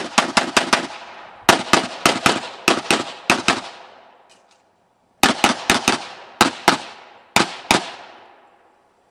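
Rapid handgun fire during a practical-shooting stage: quick strings and pairs of pistol shots, each with a short echo off the berms. The shots stop for about a second and a half midway while the shooter moves, then resume in fast pairs and end shortly before the close.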